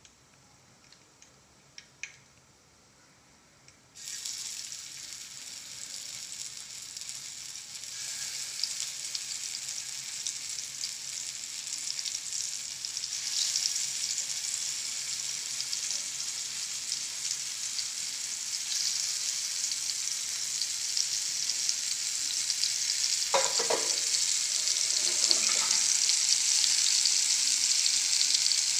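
Red-masala-coated snakehead (murrel) fish steaks frying in hot oil. After a few quiet seconds with faint ticks, the sizzling starts suddenly about four seconds in and grows steadily louder, with a few short knocks and scrapes about two thirds of the way through.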